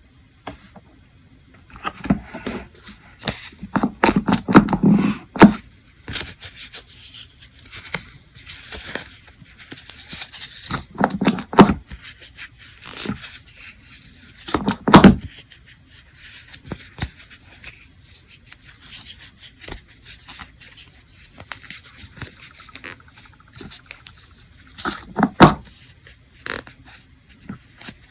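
Close-up handling noise of small objects: irregular clicks and taps with scraping and rubbing, and a few louder knocks, typical of nail-care tools and polish bottles being picked up and set down during a manicure.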